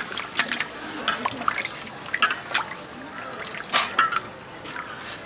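Water splashing and dripping in a metal bowl as hands wash pieces of cut olive barb fish, with irregular sharp splashes.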